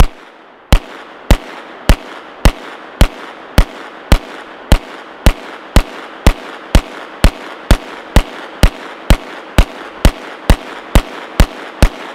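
B&T GHM9 9mm pistol fired semi-automatically in a steady string of about twenty-two shots, roughly two a second and quickening slightly towards the end. Each shot is a sharp crack with echo trailing between shots.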